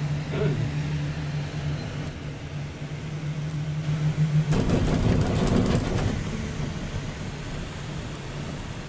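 Cable-car gondola ride heard from inside the cabin: a steady hum, then about four and a half seconds in a louder rattling rumble for a second and a half, easing back to a steady rush that slowly fades.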